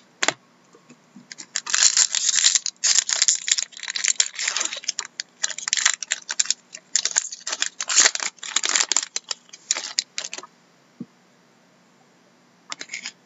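Foil wrapper of a hockey card pack being torn open and crinkled by hand: a dense run of crackling and tearing for about nine seconds that stops suddenly, then a few faint clicks near the end.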